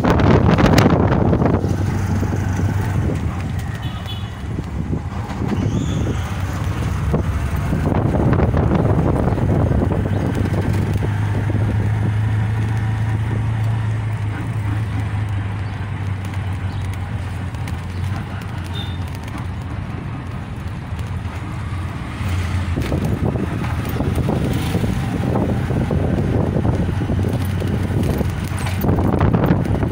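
Engine of a small three-wheeled auto-rickshaw (tuk-tuk) running steadily while riding, a low hum under rushing noise from wind and the road that swells and fades a few times.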